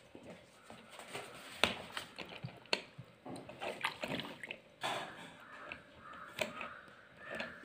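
Water dripping and splashing into a paper cup from a homemade water dispenser built from a box and an upturned bottle, with a few sharp clicks, the loudest about a second and a half in and again near three seconds.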